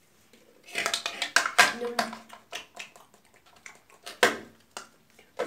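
Hard plastic toy head being handled: a cluster of clicks and knocks about a second in, then scattered ticks and one sharp knock near the end.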